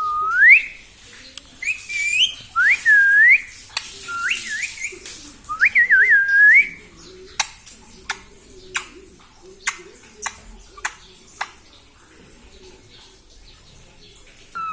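A pet parrot whistling a run of rising, swooping whistles, one after another. These are followed by a series of sharp clicks, about two a second.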